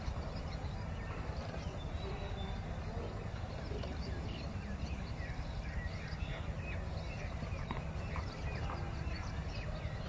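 A flock of swallows twittering: many quick, high chirps and short falling notes, over a steady low rumble.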